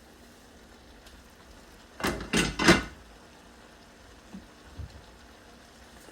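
Cookware clattering: three quick loud knocks of pots, pans or utensils about two seconds in, then two faint taps a couple of seconds later.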